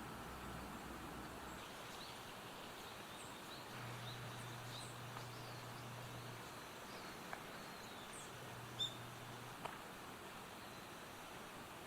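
Quiet rural outdoor ambience with scattered short, high bird chirps, the loudest a little under nine seconds in. A faint low hum comes and goes in the middle.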